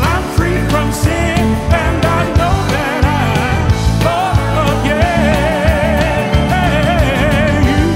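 Live gospel song: a male lead singer with backing vocalists over a band with a steady bass line. He holds a long, wavering note through the second half.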